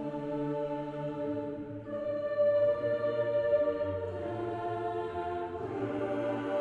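Background music: sustained choir-like voices holding chords that change every couple of seconds.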